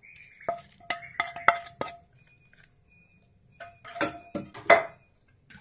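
Metal clinks and knocks of a steel frying pan being tapped and scraped as fried spices and ghee are emptied out of it. A few strikes with a short ring come about half a second in and again near four seconds in.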